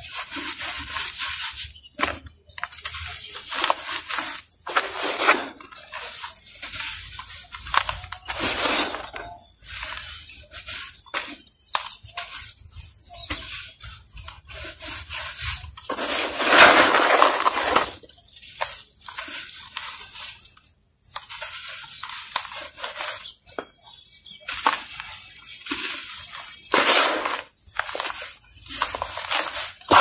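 Hands scooping, rubbing and sifting dry, dusty gray powder in a plastic tub: irregular rustling and hissing as the powder crumbles and pours through the fingers, with a longer, louder pour about halfway through.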